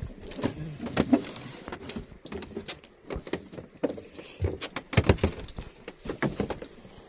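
Irregular knocks and clatter of hands and gear bumping against the wooden planks and hull of a small outrigger fishing boat as someone moves about in it, with a few louder knocks about five seconds in.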